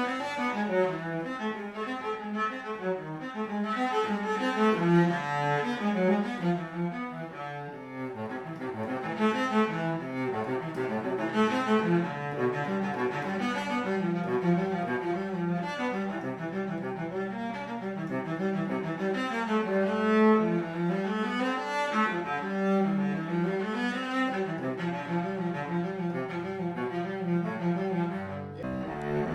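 A 2015 cello by Frederich Holtier, built after an Alessandro Gagliano model, bowed in a continuous passage of changing notes, with a brief break near the end.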